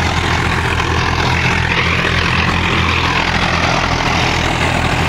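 Sonalika tractor diesel engines running steadily under load while driving rotavators through the soil.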